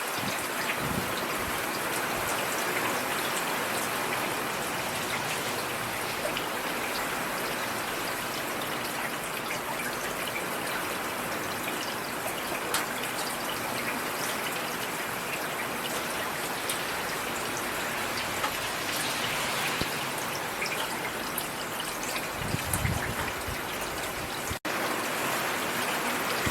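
Steady rainfall, an even hiss with scattered individual drops ticking, a brief low rumble a little before the end, and a momentary cut-out just after it.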